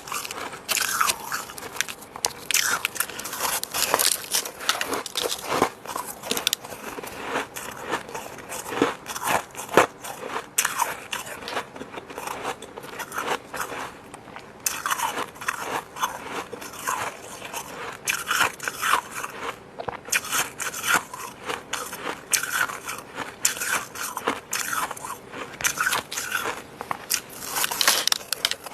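Fluffy humidifier-grown freezer frost being bitten and chewed close to the microphone: dense, irregular crackling crunches with a couple of brief pauses.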